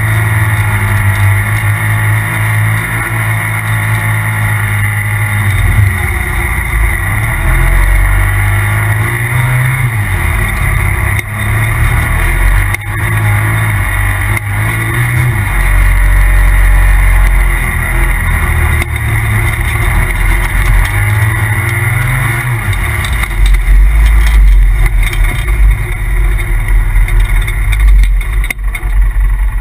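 Polaris RZR Turbo side-by-side's turbocharged twin-cylinder engine running hard, its pitch rising and falling again and again as the throttle is worked, under a heavy low rumble that grows stronger in the last few seconds.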